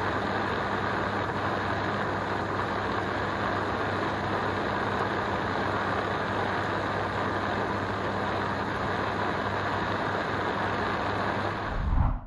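Hot tub whirlpool running: a steady rush of churning water from the jets over a low, even hum. A short low thump near the end, then the sound cuts off abruptly.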